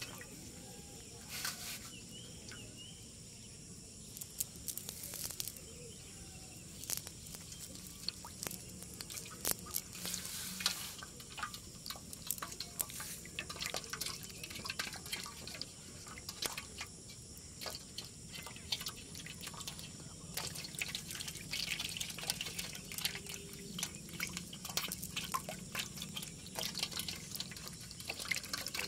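Live fish flapping and splashing in shallow water in a metal basin, giving irregular small splashes, drips and taps.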